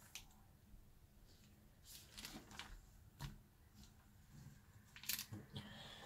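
Faint rustling of clear plastic binder sleeve pages being turned and trading cards handled, a few brief crinkles with a sharper one about five seconds in.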